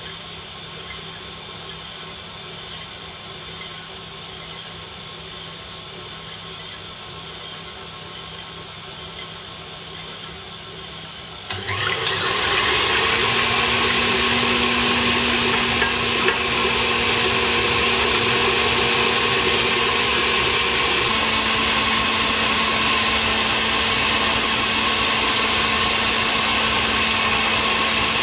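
Stand mixer starting up about 12 seconds in and running steadily, its whisk whipping egg whites, with a steady motor whine that steps down in pitch about 21 seconds in as the speed changes. Before it starts there is only a low steady hiss.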